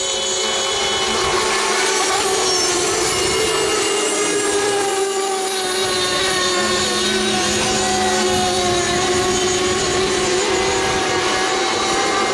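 Several FSR-O 7.5 radio-controlled outrigger racing boats with 7.5 cc two-stroke engines running flat out: a high-pitched, continuous whine made of overlapping engine notes, each drifting slightly in pitch.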